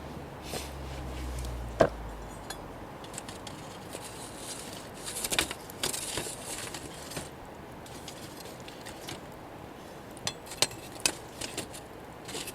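Light clinks and clatter of camp cookware and utensils being handled. There is one sharp knock about two seconds in, a busy patch of clatter midway, and a few separate ticks near the end.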